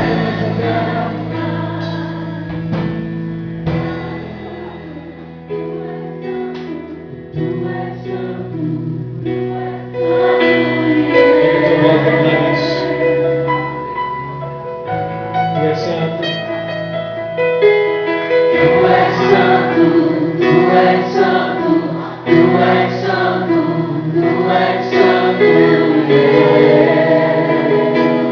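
Christian worship music: singing over instrumental accompaniment, softer for a few seconds and then growing fuller and louder about ten seconds in.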